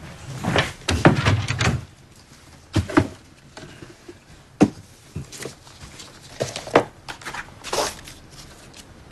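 Handling sounds of a cardboard box on a desk: rustling and thuds at first, then a string of separate sharp knocks and clicks as the lid comes off and things inside are moved about, the loudest about four and a half seconds in.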